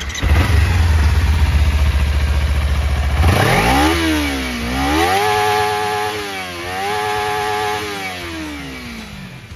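Kawasaki Ninja 300's parallel-twin engine on its stock exhaust, starting just after the beginning and running at a low idle for about three seconds. It is then revved, rising and falling in pitch, held up twice, and dropping back toward idle near the end.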